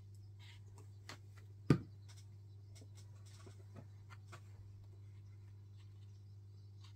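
Paper pages of a small art journal being turned and handled, with soft rustles and light taps. There is one sharp tap a little under two seconds in, all over a steady low hum.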